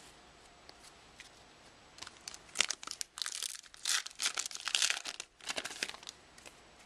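A trading-card pack wrapper being torn open and crinkled: a run of crackly tearing sounds starting about two seconds in and stopping about a second before the end.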